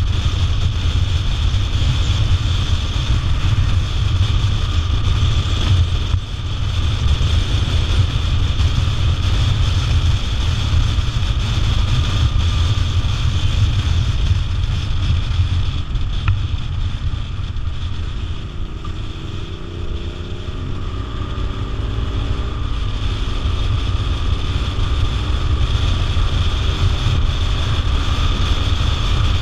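Motorcycle riding at road speed: wind rushes over the microphone on top of a low engine and tyre rumble. The rush eases briefly about two-thirds of the way through, and a faint rising engine note shows through before it builds again.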